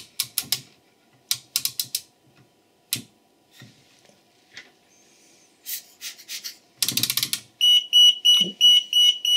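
Sharp clicks from the intruder alarm's key switch and control knob being worked, in several bursts. Then, about seven and a half seconds in, the alarm's built-in sounder starts beeping a high tone, about four beeps a second.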